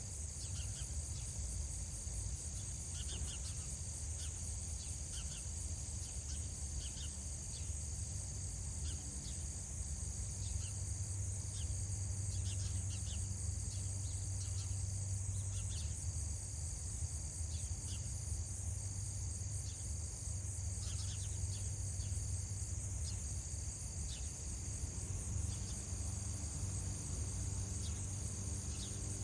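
Insects chirring steadily: a continuous high buzz and a pulsing trill that breaks off and resumes every second or so, with scattered short high chirps, over a steady low rumble.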